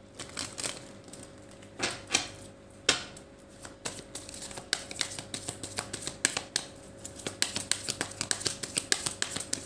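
A small deck of Lenormand cards being shuffled by hand: light card clicks and slaps, a few scattered ones at first, then a quick, continuous patter from about halfway through.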